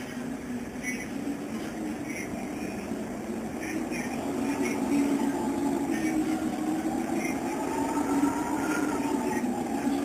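Small metal jingle bells on a string jingling in short clusters as a cat noses and rubs against them, over a steady low drone that slowly rises in pitch and grows louder.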